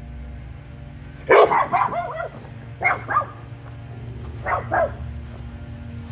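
A dog barking: a run of barks about a second in, then a pair of barks about three seconds in and another pair near four and a half seconds, over a steady low hum.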